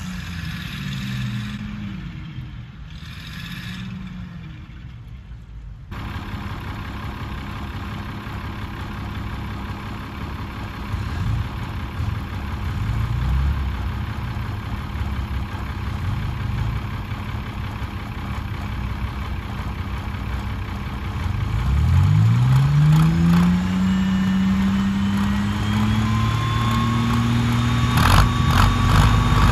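Heavy vehicle engines straining under load to pull a stuck lorry out of soft ground: first revving up and down in quick repeated surges, then running steadily. About two-thirds of the way through, one engine revs up in a long rising climb and holds at high revs, with a burst of clatter near the end.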